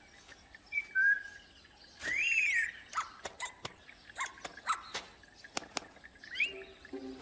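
A cartoon owlet chick's chirps: a short whistle, then a loud call that rises and falls, followed by a run of quick clicks and short peeps, and a quick rising chirp near the end.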